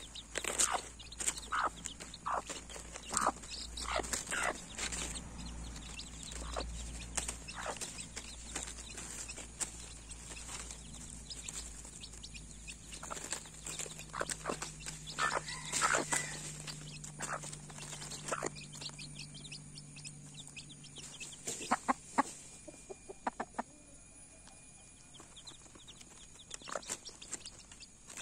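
A domestic hen clucking and her small chicks peeping as they feed, in short scattered calls that come thickest in the first few seconds and again around the middle.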